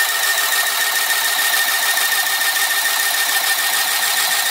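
Handy Stitch handheld sewing machine running steadily, its needle stitching through a sheet of acetate, with a steady high whine from the motor.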